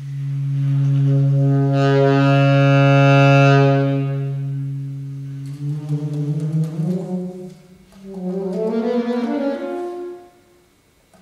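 Solo saxophone playing a long, low held note that swells in loudness. It then moves into a phrase of shifting notes, pauses briefly about 8 s in, plays a second phrase, and fades away near the end.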